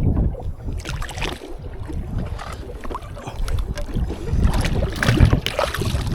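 Strong wind buffeting the microphone over the rumble of a small boat rocking on choppy water, with scattered knocks and splashes against the hull.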